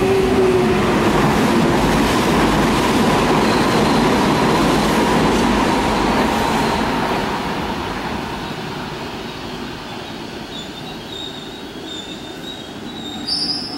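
Electric commuter train pulling into the platform, its motors and wheels loud at first, then dying down as it slows to a stop. A brief high squeal comes near the end.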